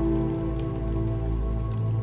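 Slow ambient music of long held notes over a steady patter of rain, with a faint sharp click a little over half a second in.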